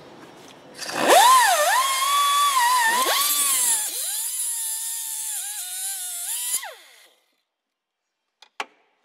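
Small high-speed cut-off wheel cutting through the steel power-steering pipe at the pump fitting: a loud whine over a hissing grind, the pitch dipping whenever the disc bites, starting about a second in and spinning down after about six seconds. A few light clicks near the end.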